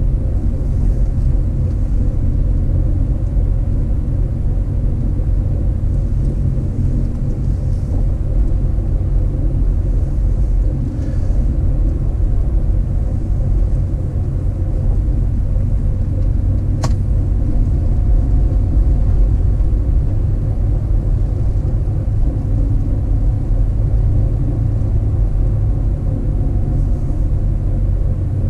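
Steady low rumble of a car driving, road and engine noise, with a single sharp click about seventeen seconds in.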